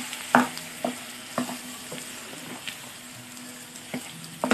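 Wooden spatula stirring boiled potato pieces through hot oil in a nonstick pan, with a light frying sizzle and a handful of irregular sharp knocks as the spatula strikes the pan.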